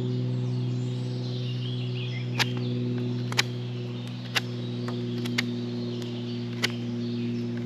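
Odenwolf W-Mini series knife carving a point on a hazel stick: five sharp clicks about a second apart as the blade shaves off chips. Under them run a steady low background music drone and faint bird chirps.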